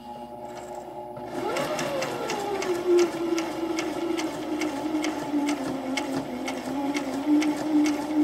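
Brother XM2701 electric sewing machine stitching through fabric. The motor starts up with a brief rising-and-falling whine about a second and a half in, then runs at a steady pace, with the needle clicking evenly throughout.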